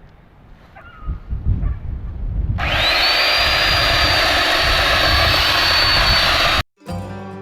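Electric chainsaw starting up, its whine rising as the motor spins up, then running at full speed with a steady high-pitched whine and loud chain noise; it cuts off abruptly near the end, after a low rumble in the first two seconds.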